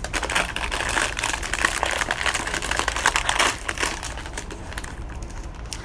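Foil-lined plastic snack wrapper crinkling as hands tear it open and handle it. The crinkling is busiest in the first three and a half seconds, then sparser.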